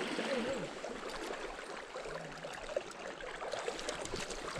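Shallow river water running and trickling in a steady babble.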